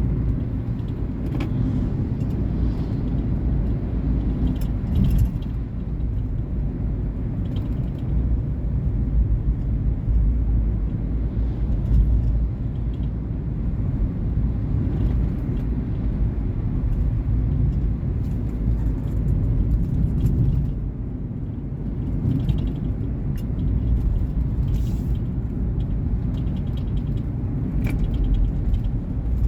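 Volkswagen Polo Vivo hatchback on the move: a steady low engine and road rumble with a few faint ticks.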